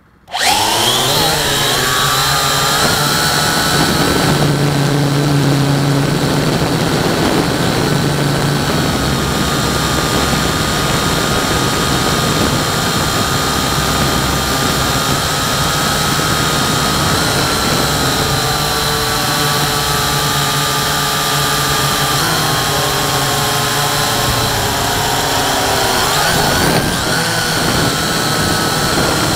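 Quadcopter drone's electric motors and propellers spinning up from rest with a rising whine, then a steady, loud buzzing drone heard from on board as it lifts off and flies. The pitch shifts slightly as it manoeuvres, dipping for a few seconds near the end and then stepping back up.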